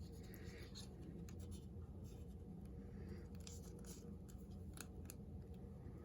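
Faint rustling and scattered light clicks of hands handling phone packaging and its contents, over a steady low room hum.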